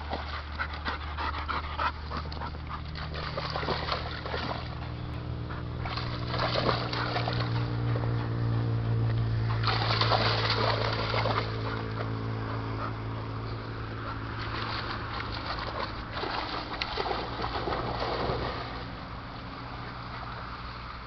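German wirehaired pointer splashing through river shallows and swimming, with louder splashing about six, ten and fifteen to eighteen seconds in. A steady low hum runs underneath.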